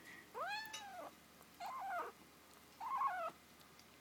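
Kitten giving three short high cries while crouched over a chicken bone. The first rises and falls, and the last two waver in pitch like a growling meow. It is a defensive warning over its food.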